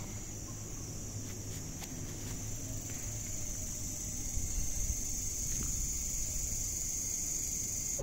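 Night insect chorus, a steady high-pitched chirring, over a low, even background rumble; it stops abruptly at the very end.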